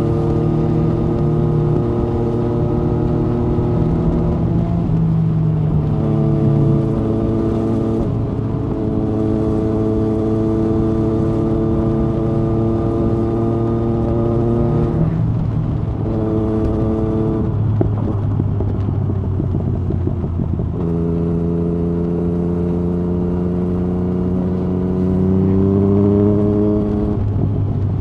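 Yamaha MT-09 SP's inline-three engine through an open Akrapovic Carbon Racing-Line exhaust with the dB killer removed, pulling at steady revs on the road. The note breaks off briefly a few times and resumes at a new pitch as gears change, and it rises a little near the end.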